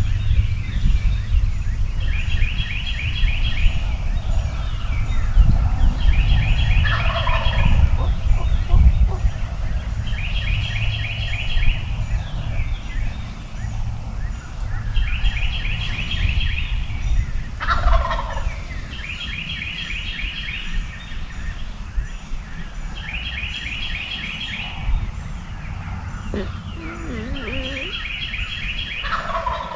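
Wild turkey gobbler gobbling three times, each a falling rattle about ten seconds apart. A small songbird repeats a short, rapid, high trill every few seconds.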